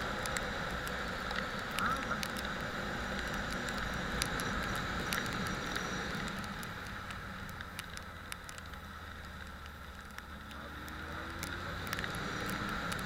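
Motorcycle riding along: the engine running steadily under road noise, with scattered light clicks, going quieter for a few seconds past the middle before picking up again.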